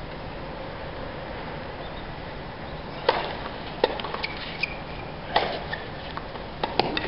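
Tennis racket strikes on the ball and ball bounces during a rally: quiet for about three seconds, then the serve and returns as sharp hits, coming about every second, with a quick cluster of knocks near the end.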